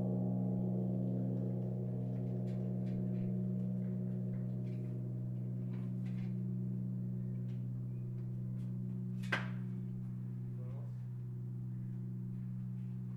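Church bell's deep hum ringing on and slowly dying away, with no new strike. A sharp click about nine seconds in, and faint clicks scattered throughout.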